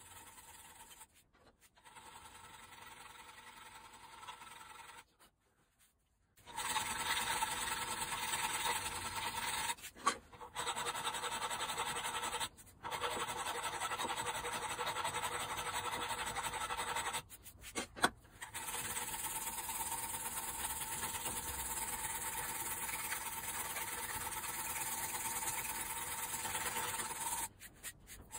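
Cast iron of a small vice body being worked with a steady abrasive scraping. It is quiet for the first six seconds, then runs continuously with a few short breaks.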